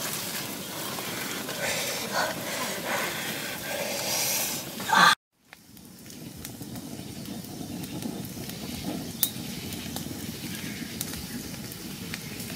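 Short puffs of breath blown onto a small wood fire, then, after an abrupt cut, the wood fire burning with a steady rush and a few sharp crackles.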